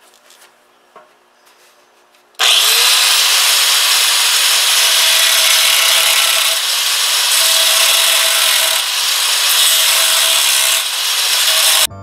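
Angle grinder with a .045-inch thin cut-off wheel spinning up about two seconds in and cutting through the rusted steel of a tractor wheel rim, loud and steady; it stops abruptly near the end. Before it starts, a few light knocks of the grinder being handled.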